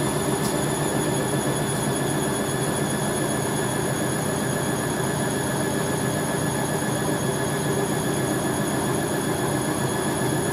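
Hoover A3060 Electronic 1100 front-loading washing machine spinning a towel load. The motor and drum run steadily at speed with a constant whine.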